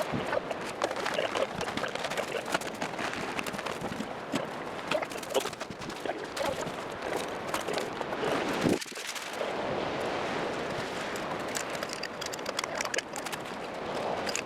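Camp gear being handled and packed up: dense clattering and knocking over rustling, with a short break about nine seconds in.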